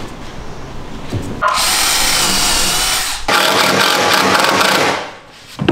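Power drill running in two bursts of a little under two seconds each, starting about a second and a half in, boring pre-drilled holes in a wooden board.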